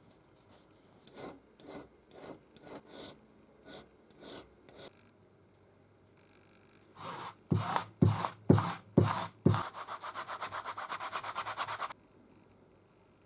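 Hand-worked abrasive strokes rubbing on metal. First comes a run of separate strokes about two a second, then a few louder strokes, then a quick run of about eight strokes a second that stops suddenly.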